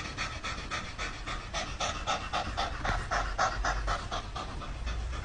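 A dog panting rapidly and evenly, about four to five breaths a second.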